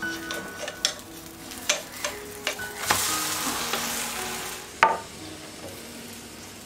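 Egg mixture sizzling in a frying pan while a wooden spatula scrapes and stirs it. The hiss swells about three seconds in and fades a second and a half later, followed by a single sharp knock of the spatula against the pan. Soft background music plays throughout.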